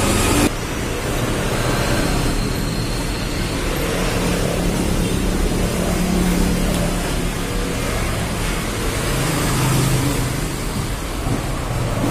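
Steady rushing background noise with a faint low hum.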